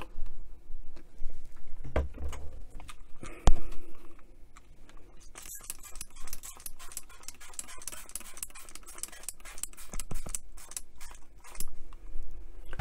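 Trigger spray bottle squirting cleaner onto a radio's grill: a hissing spray, several squirts, from about five to seven and a half seconds in. Before it come handling clicks and one sharp knock about three and a half seconds in.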